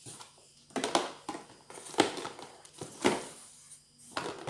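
Plastic hair-product bottles and jars being handled and picked up: a run of five knocks and crinkly rustles about a second apart, the loudest near the end.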